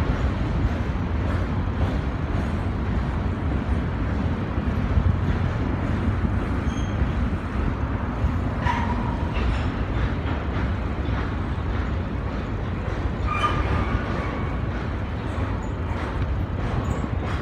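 BNSF grain train of covered hopper cars rolling across a steel truss bridge: a steady low rumble with a continual clatter of wheels. Brief metallic squeals come about nine and thirteen seconds in.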